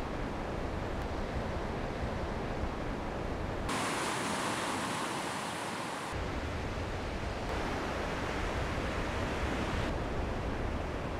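Steady rushing outdoor ambience of water and wind. It shifts in tone about four seconds in, becoming brighter with less low rumble, and shifts back about two seconds later.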